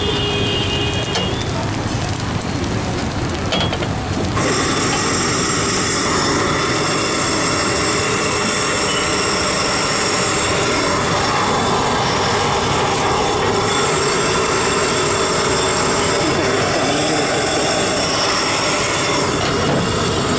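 Steady hissing of a street-stall gas stove and pans cooking over an open flame. It jumps louder about four seconds in and then holds steady.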